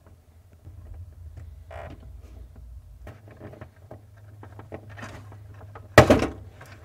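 Plastic wiring-harness connectors on a refrigerator ice maker being unplugged: faint rustling of wires and small clicks of the locking tabs, then one loud, sharp click about six seconds in. A low steady hum runs underneath.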